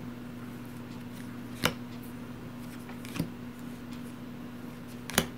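Playing cards being handled and laid down on a table, with three sharp taps about a second and a half apart, over a low steady hum.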